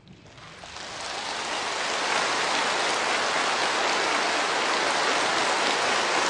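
A steady, even hiss that fades in from silence over about two seconds, then holds level.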